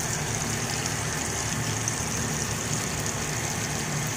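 Steady sizzle of sliced pork frying in a pan over a gas burner, with a low steady rumble under it.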